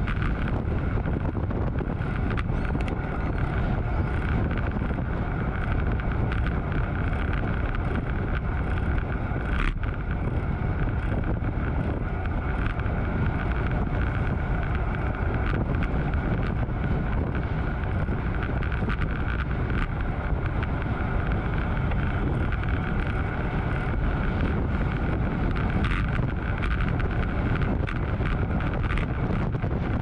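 Steady rush of wind buffeting a bike-mounted action camera's microphone while riding a road bike, mixed with the bike's running noise on the road and a few light knocks.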